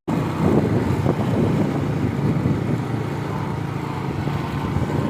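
Small 70cc single-cylinder motorcycle engine running steadily while riding, with wind rushing over the microphone.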